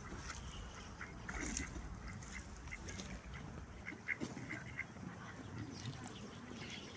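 Mallard ducks on the water giving scattered quacks and short calls.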